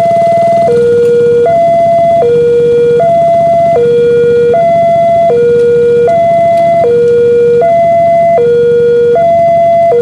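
Railway level-crossing warning alarm. An electronic two-tone signal alternates steadily between a lower and a higher tone, each held about three-quarters of a second, warning road users that a train is approaching and the barrier is down.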